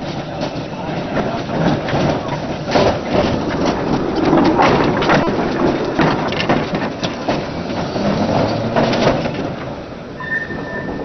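A tram passing close by, its wheels clattering and knocking over rail joints and points. The sound swells to its loudest midway and then eases off. Near the end a thin, steady wheel squeal sets in.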